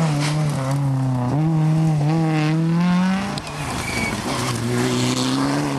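Rally car engines at full throttle, the pitch climbing steadily as one car accelerates. About three and a half seconds in the sound drops off briefly, then another car's engine comes in at high revs.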